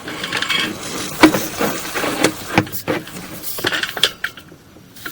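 Irregular knocks and clatter from a sewer inspection camera's push rod and reel as the camera is fed along the sewer pipe, with several sharp knocks, the loudest about a second in.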